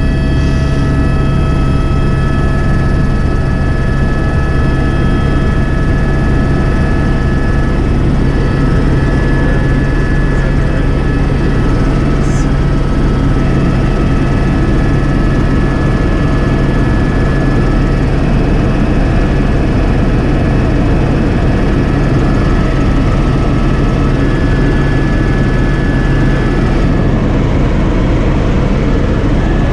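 Helicopter in flight heard from inside the cockpit: loud, steady rotor and engine noise with a constant whine of several fixed tones from the turbine.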